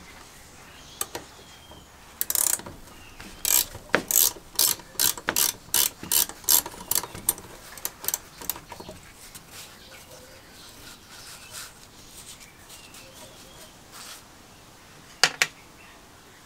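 Ratcheting box-end wrench clicking as it undoes the rusty nut on a 1950s Aerite foot pump's pedal linkage. The clicks come in a run of about two or three a second, then thin out. One sharp knock comes near the end.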